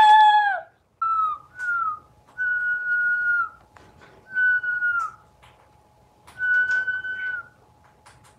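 Chattering lory crying: a series of about six long, whiny whistled calls, each held on one pitch and dropping at the end. The first, at the very start, is the loudest and harshest.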